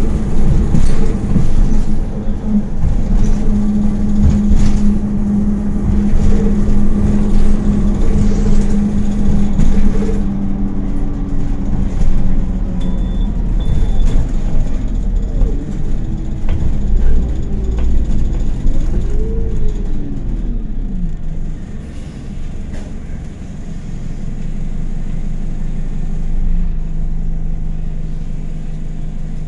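Anadolu Isuzu Citibus city bus heard from inside the cabin while driving: engine and drivetrain running with a steady whine, several rising and falling pitch sweeps in the middle, then lower and quieter for the last several seconds. Two short high beeps about 13 seconds in.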